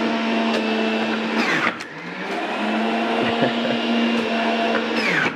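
Stainless-steel centrifugal juicer running as it juices apples and beets, a steady motor hum. Its pitch sags about a second and a half in, then climbs back. Near the end it falls again as the motor winds down.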